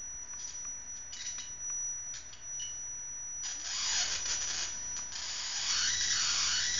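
High-voltage arc from a flyback transformer crackling across a spark gap being opened by hand, over a steady high whine from the flyback driver. It starts as scattered crackles and becomes a continuous rasping hiss about three and a half seconds in.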